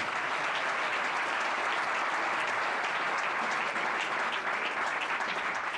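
Spectators applauding steadily, a dense spread of hand claps that begins just as the announcer finishes.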